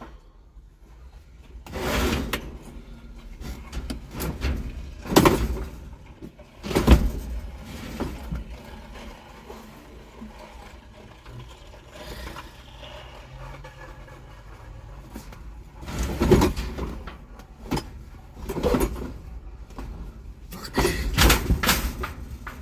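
A series of irregular knocks and thumps, several of them loud, with rustling and a steady low rumble in between.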